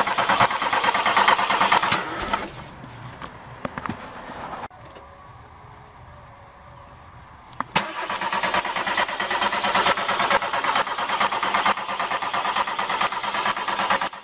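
VW Golf engine being cranked over by its starter without catching, in two bursts with a pause of about three seconds between them; the second burst starts with a click about eight seconds in. The engine will not fire because water in the spark plug leads is still making them arc to the plugs and head.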